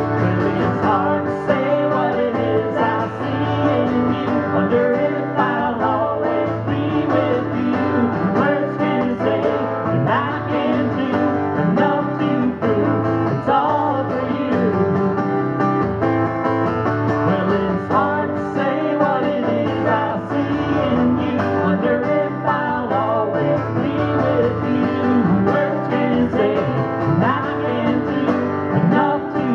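Live music: an acoustic guitar being played through a song.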